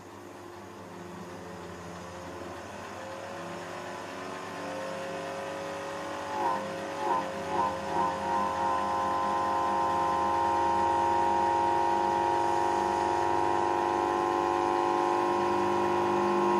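QEG generator's drive motor and rotor spinning up as the variac is turned up: a mechanical whine that rises in pitch and grows louder, pulses about five times near the middle, then settles into a steady run.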